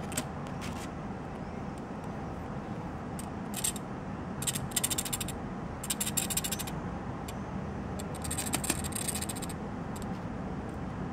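A 3D-printed ABS spring motor demonstrator being turned by hand, giving short bursts of rapid plastic clicking, four or five bursts in the middle stretch, over a steady low background.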